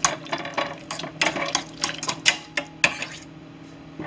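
A spoon stirring corn kernels and butter in a stainless steel saucepan, with a quick run of clinks and scrapes against the pan's side; the stirring stops a little after three seconds in.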